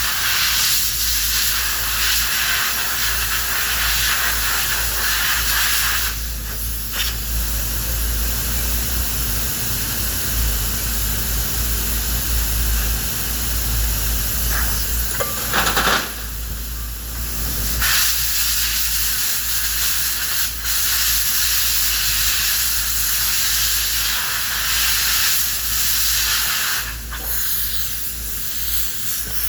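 A steady loud hiss, broken off briefly three times, about a quarter, halfway and near the end, over a low hum.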